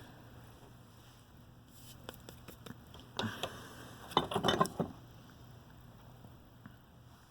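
Light clicks and taps of small hand tools and a tiny component being handled at a workbench, a few scattered at first, then a busier cluster of ticks and scrapes a little past the middle.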